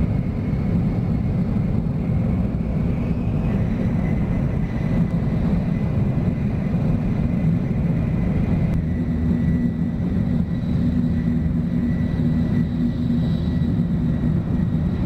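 Steady low rumble inside a Tokaido Shinkansen bullet train car running at full speed, around 270 km/h: rolling and wind noise carried through the cabin, with a faint high whine.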